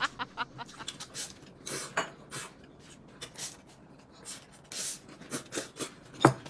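A man eating noodles with chopsticks from a lifted bowl: a series of short slurps and chewing sounds, the loudest about six seconds in.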